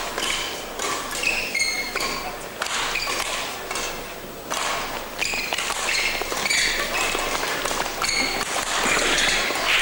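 Short high squeaks of badminton players' shoes on the court floor, with sharp racket strikes on the shuttlecock once the rally is on, over the murmur of a crowd in a large hall.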